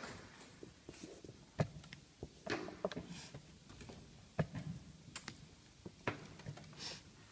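Plastic chess pieces picked up and set down on a roll-up board on a wooden table, with chess clock buttons struck between moves. Irregular sharp clicks and knocks, several short ones in quick succession a little under halfway through.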